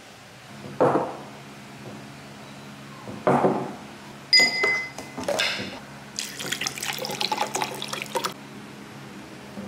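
Liquid poured into a drinking glass: two short splashes, a ringing clink of glass about four seconds in, then a couple of seconds of dense crackling splashing as the yellow vitamin drink is made. A faint steady hum lies underneath.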